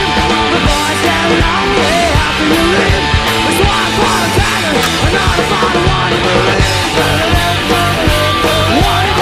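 Rock music with a driving drum beat and electric guitars.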